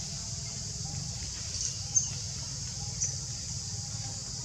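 Three short, very high bird chirps, the loudest about two seconds in, over a steady high hiss and a low rumble of outdoor background.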